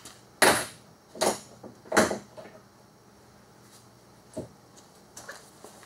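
Three sharp clacks less than a second apart, the first the loudest, then a softer one later, as a spring hose clamp is worked onto a rubber heater hose.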